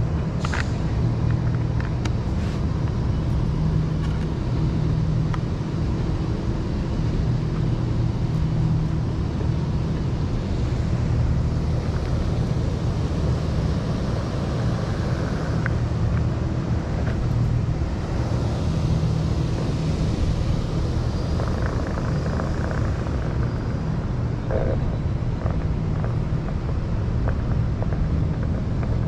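Steady low hum and rumble of a OneWheel board being ridden on the street: the hub motor hums and the tyre rolls on pavement, with a few short clicks.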